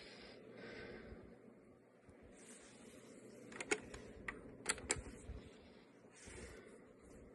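Faint rustling, then a quick run of sharp mechanical clicks and taps in the middle, like keys or buttons being pressed or something being handled.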